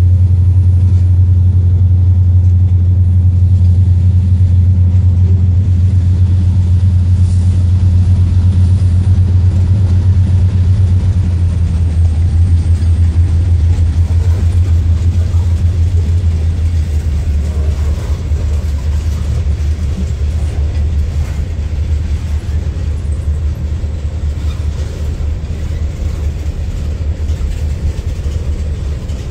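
Freight cars of a passing freight train rolling by on the rails: a steady low rumble that gradually eases over the second half.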